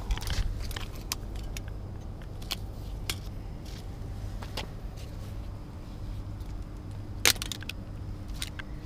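Light metallic clicks and jangles of fishing pliers and tackle as a deeply swallowed hook is worked out of a fish's mouth, with one sharper click about seven seconds in. A steady low rumble runs underneath.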